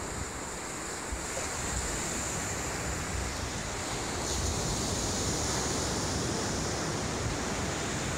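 Ocean surf washing steadily, with wind on the microphone.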